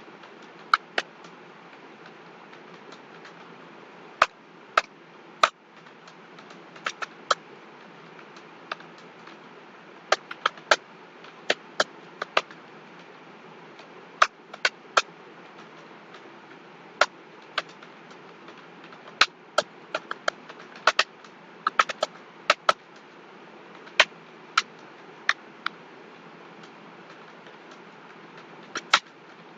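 Irregular clicking of computer keyboard keys, single keystrokes and short quick runs with pauses between, over a steady background hiss.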